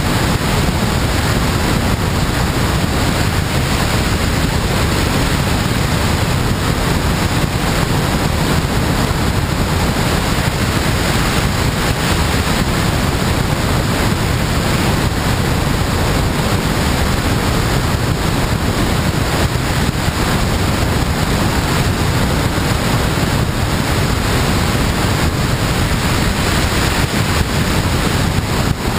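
Steady rush of airflow over a camera mounted on a glider's wing in flight: loud, even wind noise on the microphone with no engine or other events.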